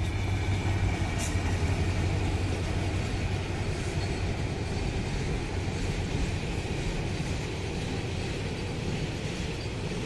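Diesel locomotive passing close by, its engine droning strongly for the first few seconds, then a container freight train's wagons rolling past on the rails in a steady rumble.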